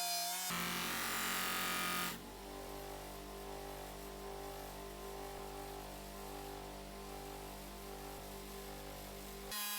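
Electric polishing tool's motor running steadily with a hum, louder for the first couple of seconds and then settling to a lower, even running sound.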